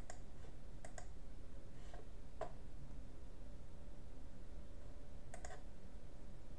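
Computer mouse clicked a few times, the clicks sharp and short, some in quick press-and-release pairs, over a faint steady background hum.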